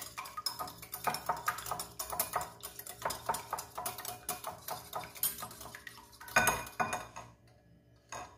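Wire whisk beating an egg in a glass bowl: quick, continuous clicking and clinking of the wires against the glass. The whisking stops about seven seconds in.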